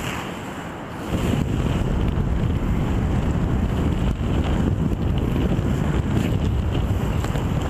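Wind buffeting the microphone of a camera on a paraglider in flight: a loud, steady, mostly low rumble that eases for about a second near the start.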